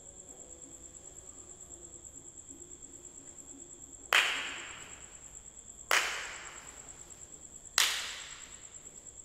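Crickets chirping steadily, then three loud sharp strikes about two seconds apart, each with an echoing tail.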